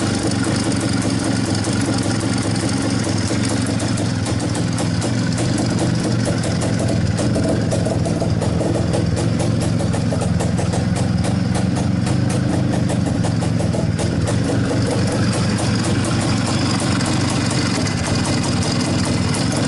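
IZh-49's single-cylinder two-stroke engine running steadily at idle, freshly rebuilt with its piston and cylinder treated with solid lubricant against piston knock. Its firing beat grows crisper and more distinct through the middle stretch, then settles again.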